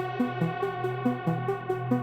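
Instrumental electronic music played back through HIFIMAN Edition XV headphones and picked up by microphones: a held synth chord over a pulsing bass line, with fast, even, high ticks like a hi-hat.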